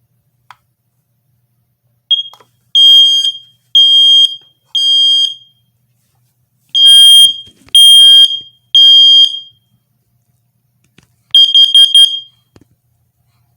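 First Alert SC9120B ionization smoke alarm sounding its self-test: a short chirp, then two rounds of three loud, high-pitched beeps in the temporal-three evacuation pattern, and near the end a quick stutter of short beeps.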